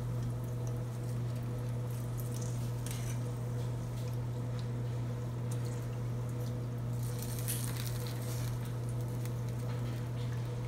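Hot oil sizzling and crackling in a pan as fried curry leaves are lifted out with a wire mesh strainer, with a louder patch of crackling about seven seconds in, all over a steady low hum.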